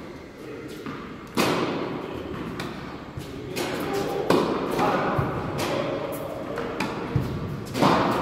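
Tennis balls struck by a racket, about three sharp hits roughly three seconds apart, each ringing on in the echoing indoor hall, with lighter ball bounces between them.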